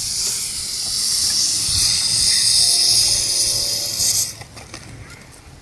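Coke foam spraying out of the neck of a 3-liter soda bottle after Mentos were dropped in: a loud, steady hiss that cuts off suddenly about four seconds in.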